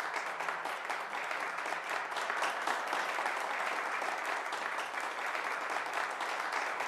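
A small crowd of guests applauding, many hands clapping at a steady level.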